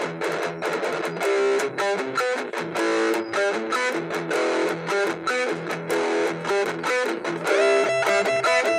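Sqoe Super Stratocaster electric guitar played through distortion: a lead line of picked single notes, changing pitch several times a second. A second guitar part joins near the end.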